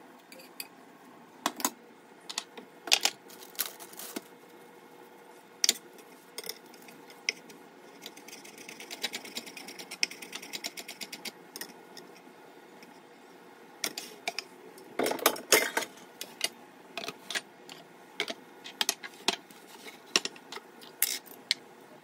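Kitchen handling sounds: scattered clicks and knocks of a utensil and dishes and a knife on a wooden cutting board, with a quick run of light taps about a third of the way in and a tight cluster of knocks later on.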